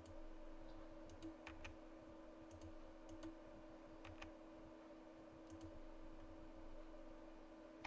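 Light clicks from a computer mouse and keyboard being worked, about a dozen in scattered short runs and close pairs over the first six seconds. Under them is a low, steady electrical hum.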